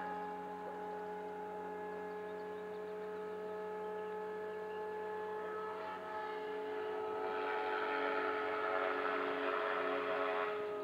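Radio-controlled model aircraft flying overhead: a steady motor-and-propeller hum made of several pitches, swelling louder from about seven seconds in as it comes closer.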